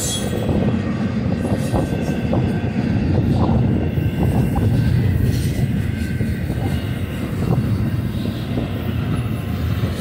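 BNSF double-stack intermodal freight train's well cars rolling past close by: a loud, steady rumble of steel wheels on the rails, with faint clicks now and then.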